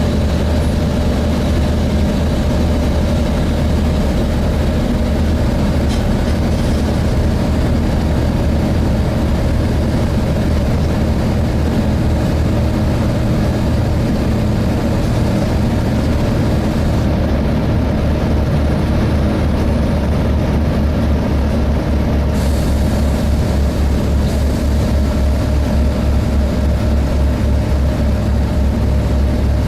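Volvo B7TL double-decker bus's diesel engine and cooling fan running, heard from inside the bus as a steady low drone with a faint steady whine above it.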